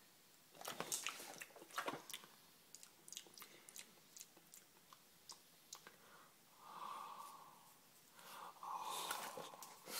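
Faint wet mouth sounds from a drooling boxer dog: lip-smacking and small clicks, busiest in the first two seconds, with two longer soft breathy sounds in the second half.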